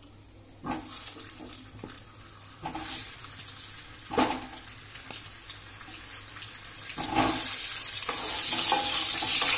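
Whole peeled potatoes dropped one at a time into hot mustard oil in a kadhai, each landing with a sudden splash of sizzling; from about two-thirds of the way through the oil settles into a louder, steady frying hiss.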